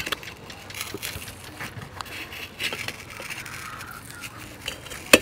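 Metal spoon scraping and clicking against a clam shell while scooping out grilled clam and egg, with one sharp click near the end.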